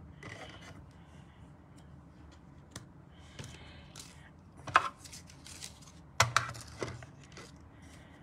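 Handling of a manual die-cutting machine's plastic cutting plates and metal dies with cardstock: a soft shuffling with several sharp clicks and knocks, the loudest about halfway through.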